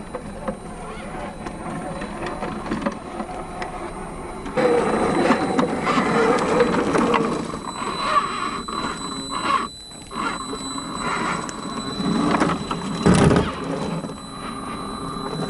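Tamiya CC-01 RC crawler's 55-turn brushed motor and gearbox whining, high-pitched and steady, while the tyres grind and scrape over rock and grit. The drive gets louder about four and a half seconds in, drops off briefly near ten seconds, and there is a loud knock about thirteen seconds in.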